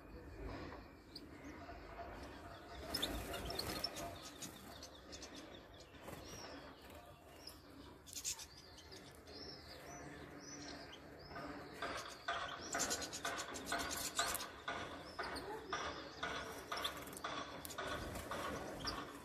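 European goldfinches chirping and twittering, the short calls coming thicker and faster in the second half.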